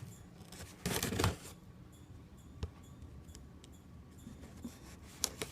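Rustling and scraping of a shipping package being cut open by hand. A louder rasping burst comes about a second in, then a few sharp clicks.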